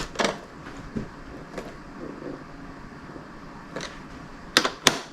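A few sharp clicks and knocks of a hand tool tightening bolts on a motorcycle trunk lid, scattered and irregular, with two louder ones close together near the end.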